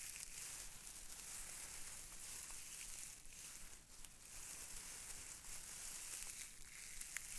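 Close, continuous crinkling and rustling of a crinkly material being handled, with a few faint ticks.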